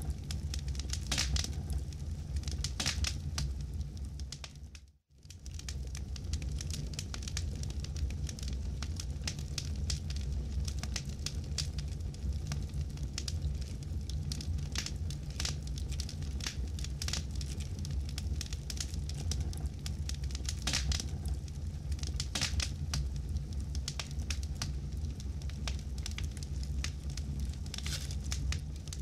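Campfire burning: wood crackling and popping in irregular sharp snaps over a steady low rumble of the flames. The sound drops out briefly about five seconds in, then resumes.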